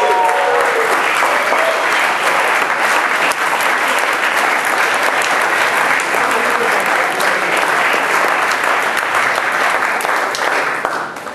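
Audience applauding steadily, with dense clapping that dies away near the end.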